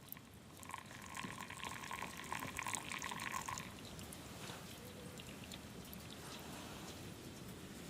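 Liquid being poured for about three seconds, stopping about four seconds in, with faint scattered crackles throughout.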